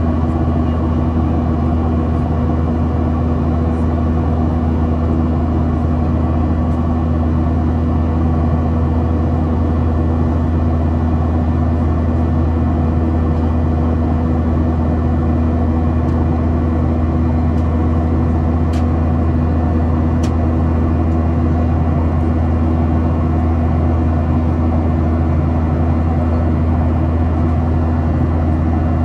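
Steady cabin noise of a Boeing 737-800 airliner in flight: its CFM56-7B engines and the airflow give a loud, even low rumble with a few steady hums above it. Two faint ticks come about two-thirds of the way through.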